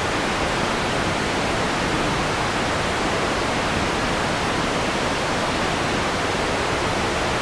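White noise from the EaganMatrix played through a single-pole low-pass filter with resonance raised: a steady hiss, the resonance barely noticeable in this filter.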